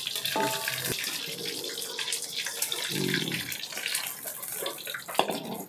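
Tofu cubes frying in hot oil in a wok, a steady sizzle.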